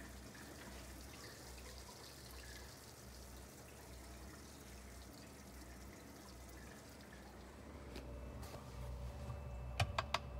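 Water trickling and dripping in a reef aquarium sump, faint and steady. Near the end come three quick clicks as buttons on the return pump controller are pressed.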